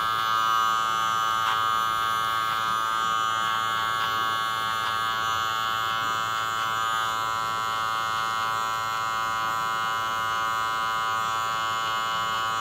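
Electric hair clipper running steadily with an even buzzing hum while fading the lower sides of the head, with a few faint ticks.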